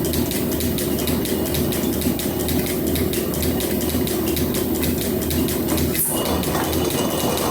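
Metal planer running through a roughing cut on a steel bar with a swan-neck tool: a steady machine running sound with a fast, regular clatter. A single sharp click about six seconds in.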